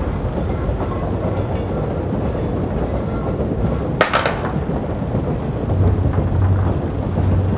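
A steady low rumble with a hum that strengthens near the end, and one sharp knock about four seconds in.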